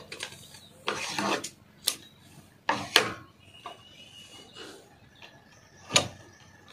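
Handling of a sewing machine and the cloth under its needle: a few separate sharp clicks and some rubbing as the fabric is turned and repositioned, with no run of stitching.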